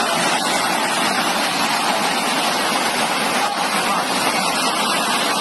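Fast-flowing floodwater rushing through a street: a steady, unbroken rush of water.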